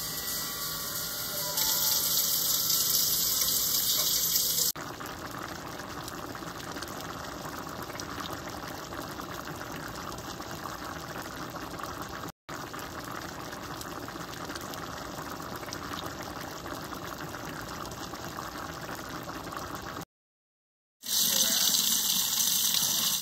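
Water running and splashing: water poured from a cup into a pan of cooked ground chicken and onions, a steady rush. After a short silence near the end, a kitchen faucet runs onto mung beans in a plastic colander.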